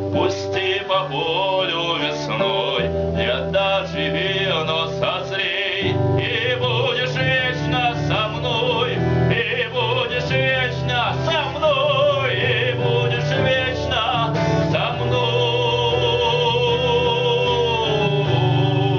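A song: a man singing with instrumental accompaniment, his voice wavering on held notes over a steady bass.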